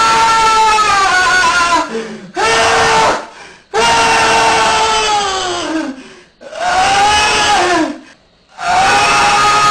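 Loud, drawn-out, horn-like groaning tones, one of the 'strange sounds' reported across the world in January 2012. They come in blasts of one to three seconds with short breaks between them, about five in all, and the pitch sags down at the end of each blast.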